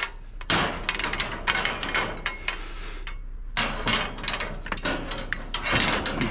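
A run of knocks, clicks and rustling clatter, as of hard objects being handled and bumped, with a brief lull near the middle.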